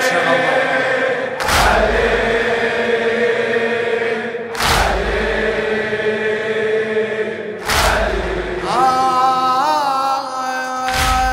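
A crowd of men chanting together in a Shia mourning latmiya, with heavy unison chest-beating strikes about every three seconds. Near the end a solo male reciter starts singing over them.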